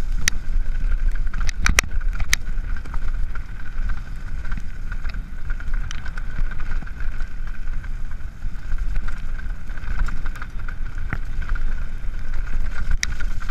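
Mountain bike rolling fast downhill on a dirt trail: tyre rumble and steady wind buffeting on the microphone, with a few sharp clicks and knocks from the bike over the first couple of seconds and once more near the end.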